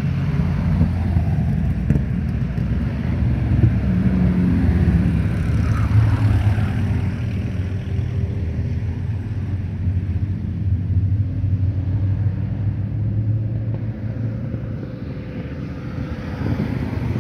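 Engines of vintage open two-seater racing cars running as they drive past one after another: a steady low engine note, loudest about five seconds in and easing off near the end.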